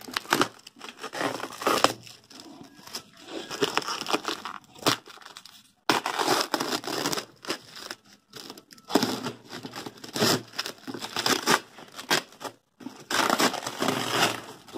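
Clear plastic wrapping and cardboard being torn open by hand on a parcel: irregular tearing, crinkling and rustling in uneven bursts, with a few short pauses.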